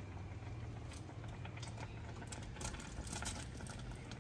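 Faint rustling and light clicks of chopped green onions and herbs being scooped off a wooden cutting board and dropped into a pot of soup, over a low steady hum.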